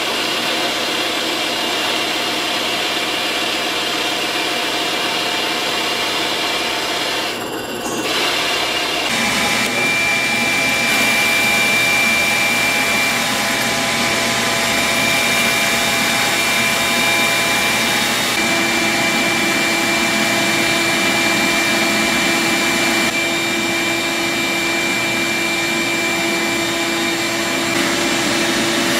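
A power tool running steadily with a whining tone and a continuous rubbing, grinding noise from the work, broken by a short dip about eight seconds in.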